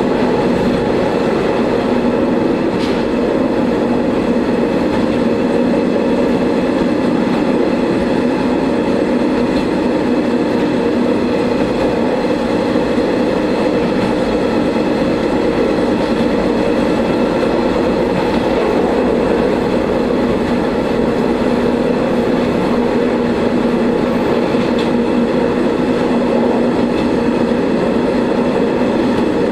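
Diesel railcar of the Shigaraki Kohgen Railway running along the line, heard from inside the car: a steady engine and transmission drone over the rolling noise of wheels on rail.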